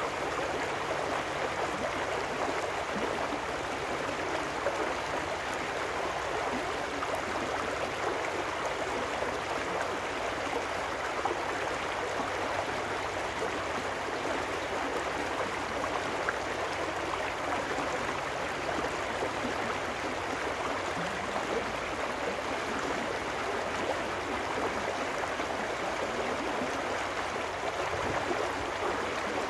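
Small trout stream rushing over rocks, a steady babble of white water with no let-up.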